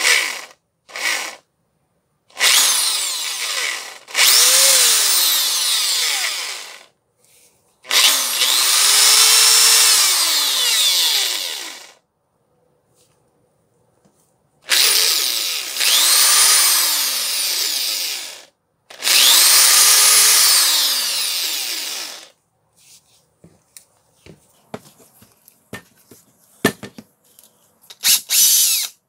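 DeWalt DW566 SDS rotary hammer drill run in repeated trigger pulls of one to four seconds, its motor spinning up and then winding down each time. Near the end there are only light clicks and knocks from handling the tool, with one short final burst.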